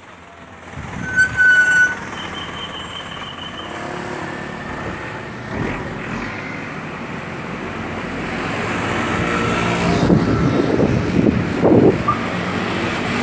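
Road traffic, with a vehicle's engine running and growing steadily louder as it approaches. Two short high-pitched tones sound in the first few seconds.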